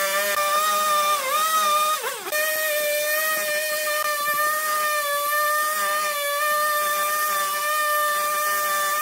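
Husqvarna chainsaw running at high speed as it cuts into the end of a log. Its pitch sags about a second in and drops sharply for a moment near two seconds, then holds steady.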